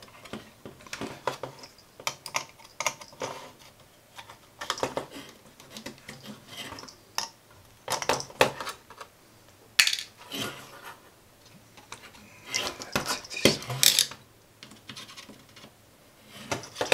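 Irregular clicks, taps and scrapes of a small screwdriver and a soldering iron tip against a circuit board as components are heated and pried loose. The loudest clusters come about ten and thirteen seconds in.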